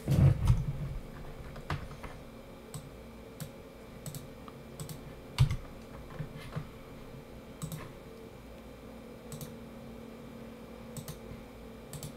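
Sparse, irregular clicks and taps of a computer keyboard and mouse over a faint steady hum, with a dull thump right at the start and a smaller one about five and a half seconds in.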